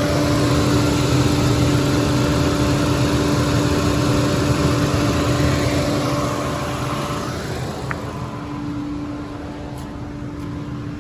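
2012 Chevy Cruze running at idle after a water pump replacement, with a fan's rush of air over the steady engine hum. The rushing dies away about seven seconds in, leaving the engine hum, with a single light click around eight seconds.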